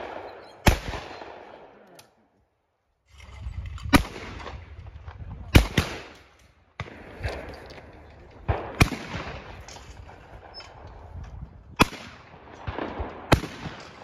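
Shotgun shots at clay targets: about six sharp blasts at uneven intervals, each trailing off. The sound drops out for about a second around two seconds in.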